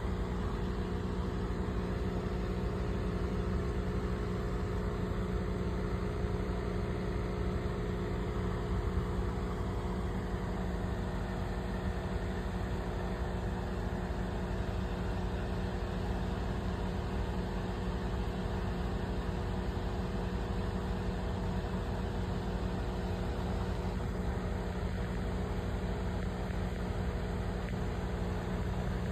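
Aquarium air pump running with a steady mains hum, made of several fixed low tones that do not change.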